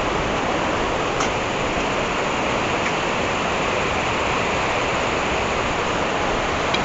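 Steady rush of a fast, flood-swollen river running high over its banks.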